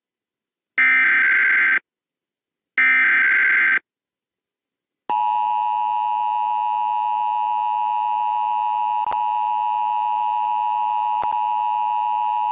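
Emergency Alert System test tones. First come two one-second bursts of the SAME header's data tones, a second apart. After a short gap the steady two-tone EAS attention signal starts and holds, with two small clicks in it.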